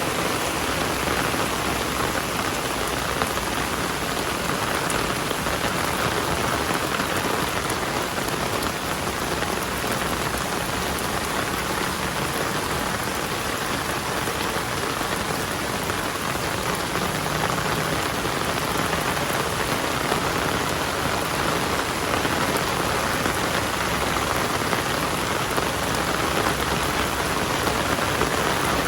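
Heavy rain falling and pattering on surfaces, a dense, steady hiss that holds at the same strength throughout.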